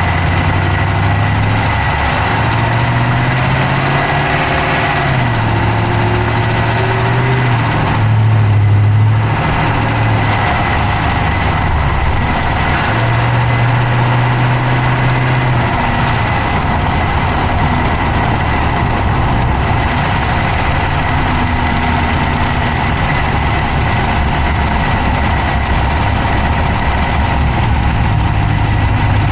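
Dodge Charger's Hemi V8 idling, heard up close from inside the engine bay, with a fast clicking from the engine.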